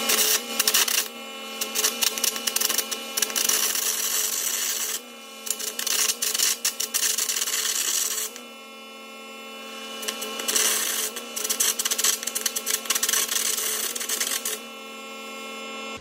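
Air carbon arc gouging on steel: the arc crackles and pops under a loud blast of compressed air. It comes in three runs of a few seconds each, with brief pauses between, over a steady hum.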